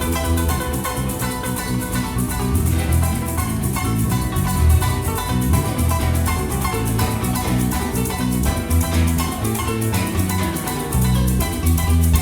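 Instrumental music: plucked strings over a bass line, with a fast, steady shaker rhythm.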